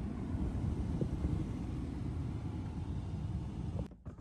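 Low rumbling noise inside the cabin of a Rolls-Royce Spectre electric car, with no engine note. The noise cuts off abruptly near the end, leaving a quieter hum.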